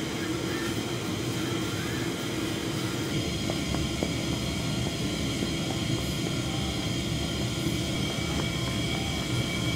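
Steady low roar of a large store's background noise, with a constant hum and a few faint clicks.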